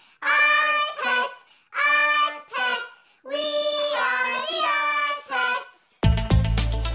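Theme song sung in a high voice in short phrases with held notes. About six seconds in it cuts to an instrumental music track with a heavy bass line and a steady beat.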